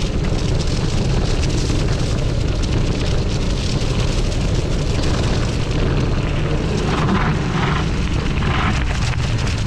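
Mountain bike tyres rolling and crackling over dry fallen leaves and dirt, under a steady low rumble of wind buffeting the helmet or bike camera's microphone. Louder rustling crunches come a few times near the end.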